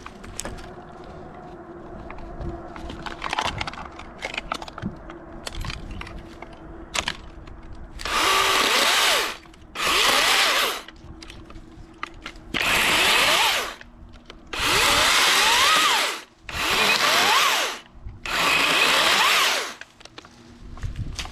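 Dewalt 60V 14-inch top-handle battery chainsaw cutting pine limbs in six short bursts, its motor whining up in pitch at each squeeze of the trigger. Before the first cut come several seconds of quieter rustling and clicks.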